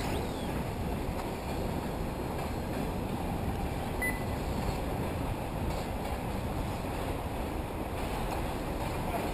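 Wind buffeting the microphone: a steady low rumble, with one short faint high tone about four seconds in.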